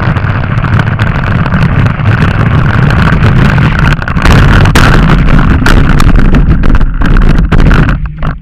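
Strong wind buffeting on the microphone over a steady low rumble, with sharp knocks here and there; it cuts off abruptly near the end.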